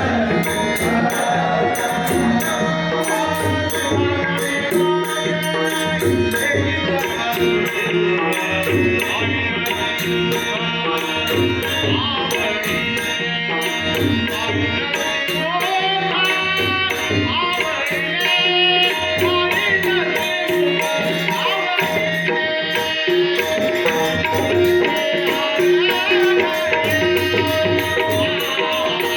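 Marathi devotional abhang sung by a male singer, accompanied by tabla and pakhawaj drums, with a steady, fast high jingling beat.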